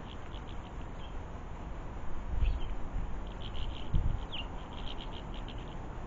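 Small garden birds chirping: scattered short, high chirps that come thick and fast between about three and five seconds in. Two dull low thumps, about two and a half and four seconds in, are the loudest sounds.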